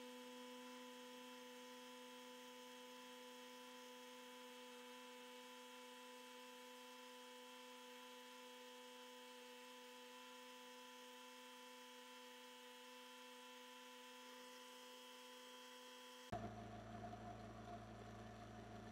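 Bench polishing motor running with a faint, steady electric hum, its buffing wheel spinning. About sixteen seconds in the sound changes abruptly to a different, lower hum.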